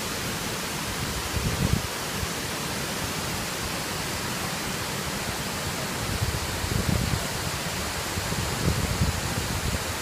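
Steady rushing of a wide, low waterfall pouring in curtains over a rock ledge. Low wind buffeting on the microphone comes in briefly about a second and a half in and returns through the second half.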